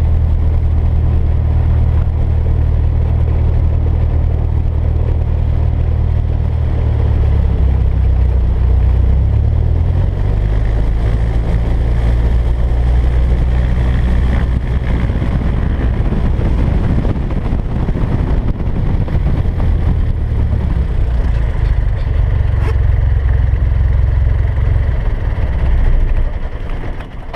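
Bellanca Citabria 7ECA's air-cooled flat-four engine and propeller heard from inside the cabin, running steadily at low power while taxiing. About a third of the way in the engine note steps down to a lower, slower idle. Near the end the engine cuts off and the sound dies away as it is shut down.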